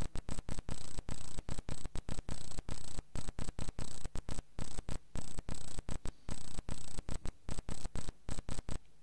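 Hiss and hum from the microphone's audio chain cutting in and out rapidly and irregularly, several times a second, giving a stuttering, crackling noise.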